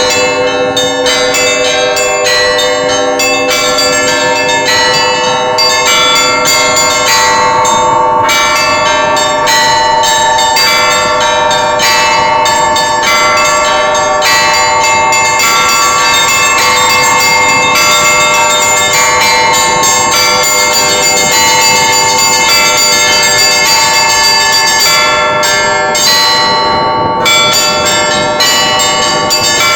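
Russian Orthodox monastery bells ringing: several bells of different pitches struck in quick succession, their overlapping tones ringing on.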